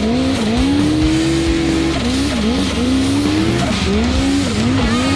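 Turbocharged snowmobile engine revving hard, its pitch dropping and climbing again several times as the throttle is worked on a snowy climb. Rock music plays underneath.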